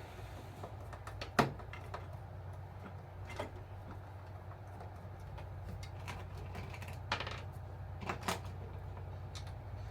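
A steady low hum with several sharp clicks and knocks scattered through it, typical of small parts being handled at a workbench.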